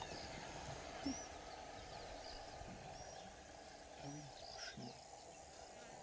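Faint outdoor bush ambience: a steady background hiss with short, high bird chirps about once a second.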